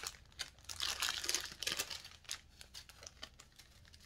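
Small resealable plastic bags of diamond-painting drills crinkling as they are handled, in irregular bursts that thin out after about two seconds.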